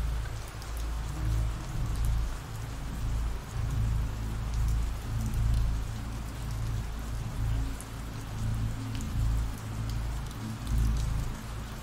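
Ambient rain recording: a steady hiss of falling rain with a deep rumble underneath that swells and fades.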